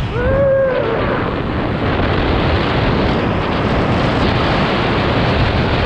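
Wind rushing over the skier's camera microphone and skis hissing through fresh powder during a fast downhill run, a loud, even rush of noise. A short pitched sound rises and falls about a quarter-second in.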